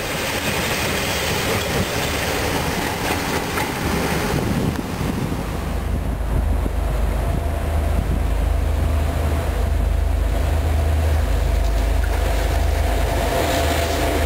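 Two DC-class diesel-electric locomotives running toward the listener, their engines a deep steady drone that comes in about five seconds in and grows slightly louder near the end. Before that there is a few seconds of rail rumble and clatter from a locomotive moving through the station.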